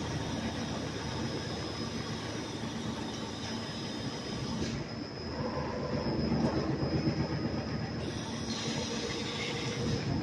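CNC roll-cutting machine for protective film running, a steady mechanical whirring with a high, constant whine over a low hum. The high whine and hiss drop out abruptly a little under halfway through and return near the end.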